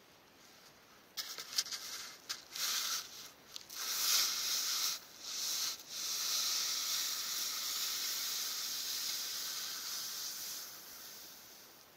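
Wooden volcano board scraping and sliding over loose volcanic gravel. It starts as stop-start bursts of hissing scrape, then becomes a steady hiss as the board runs downhill, fading out near the end.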